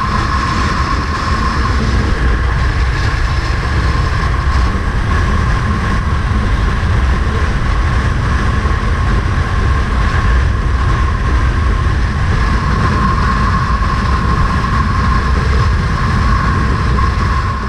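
Steady running noise of a vehicle in motion: a continuous low rumble with a constant whine on top. It stops abruptly near the end.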